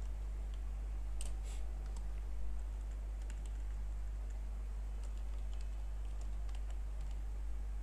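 Computer keyboard being typed on: scattered keystrokes coming a few at a time, over a steady low hum.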